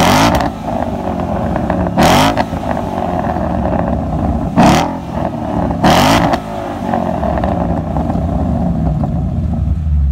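Ford Mustang GT's 5.0 V8 through an aftermarket cat-back exhaust, blipped from idle: four quick revs in the first six seconds, each dropping back, then idling steadily.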